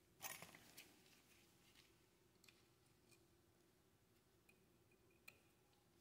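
Near silence: room tone with a faint steady hum, broken by a few faint clicks and taps, a small cluster about a quarter second in and a single sharp tick about five seconds in.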